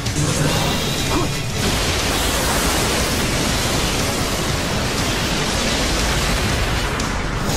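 Dense, steady wash of noise from animated battle sound effects, beam weapons firing and explosions, with background music underneath.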